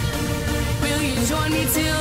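Background music: electronic pop with sustained synth tones, a moving melody line and a steady low beat.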